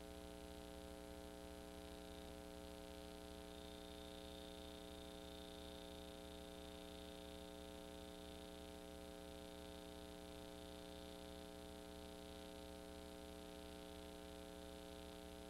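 Near silence with a steady low electrical hum and a faint high whine, with no sound from the scene itself.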